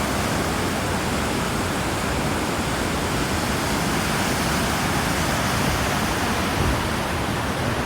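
Steady rush of whitewater from Vernal Fall and the Merced River in full spring flow: an even, unbroken noise with no change in level.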